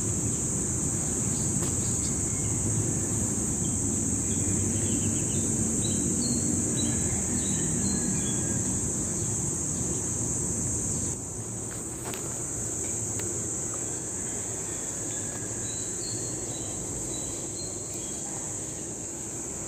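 A steady, high-pitched insect drone over a low background rumble, with scattered short bird chirps. The rumble drops a little about halfway through.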